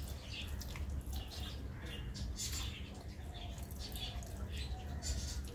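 Fingers squeezing and mixing soft boiled rice on a steel plate: a run of small irregular wet clicks and squelches, over a low steady hum.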